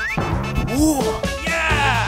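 Comic background music with cartoon-style sound effects: a quick rising pitch glide at the start, then several falling, sliding glides over a steady beat.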